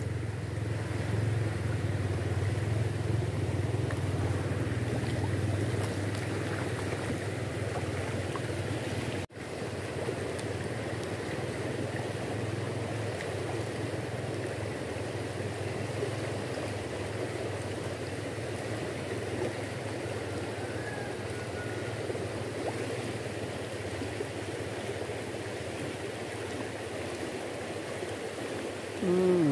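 Steady rush of a fast-flowing river current, with a low rumble in the first few seconds that fades out.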